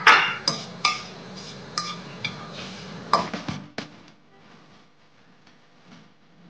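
Plastic slotted spatula knocking and scraping against a non-stick wok as whole spices are stirred in oil: a run of sharp clinks through the first four seconds, then only faint ticks.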